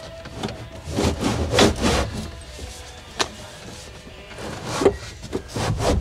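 Subwoofer box being shoved and scraped against the car's interior: a run of rubbing scrapes, a sharp knock about three seconds in, then more scraping near the end, with music underneath.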